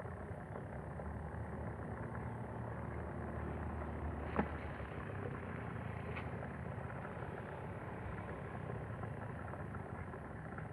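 A steady low hum of a running engine, with one sharp click about four and a half seconds in.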